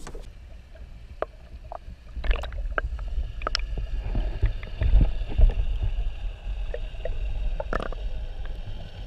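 Muffled low rumble and sloshing of water heard through a submerged camera, getting louder about two seconds in, with scattered sharp clicks and knocks.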